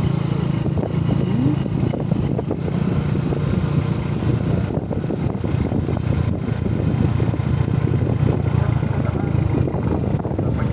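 Motorcycle engine running at a steady cruise, heard from on board while riding, with wind and road noise over it.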